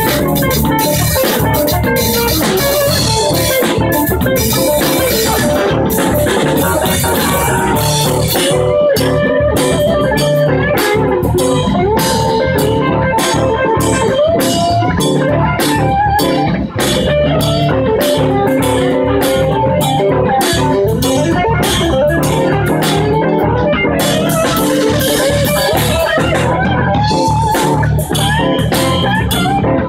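Live band playing a jam with a steady beat.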